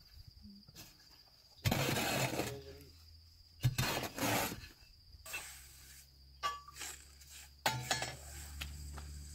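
Shovel scooping and scraping through sand in several separate strokes, digging a buried pit oven open, with a broom sweeping sand off its metal lid near the end. Crickets chirp steadily underneath.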